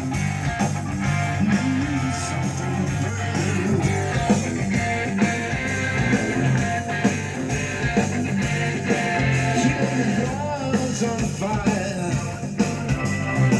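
Hard rock song with electric guitar and drums, played loud through a Panasonic SA-AK28 mini system's original speakers from an auxiliary input and heard in the room. The system is set to its 'disco' equalization, which lifts the bass and treble, and the playback is heavy in the mid-bass.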